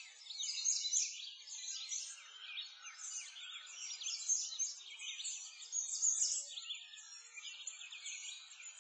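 Many small birds chirping at once: a dense, overlapping twitter of quick high calls with no low sound beneath it.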